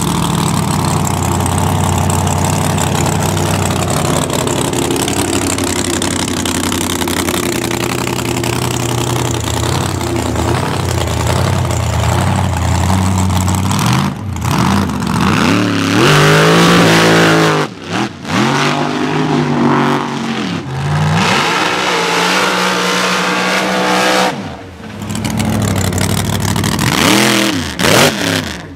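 Mega mud truck engine running steadily, then revved hard again and again, its pitch climbing and falling with each stab of the throttle.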